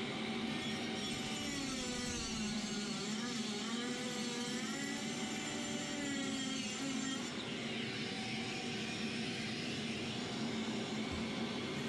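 Milwaukee 3-inch cut-off grinder running as its disc cuts through ceramic wall tile, a steady whir whose pitch wavers up and down as the load on the disc changes.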